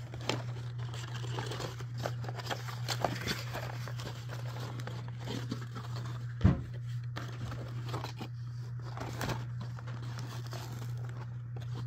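Rubik's cube packaging crinkling and rustling as it is handled and pried open, in irregular small scrapes and crackles, with one sharp knock about six and a half seconds in.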